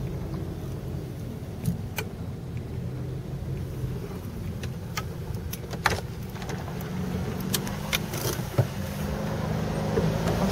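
Car engine running at low speed as the car creeps across a gravel car park, heard from inside the cabin as a steady low hum that grows a little louder near the end, with a few sharp clicks.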